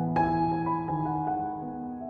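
Slow, calm instrumental background music with held notes, a new chord coming in just after the start.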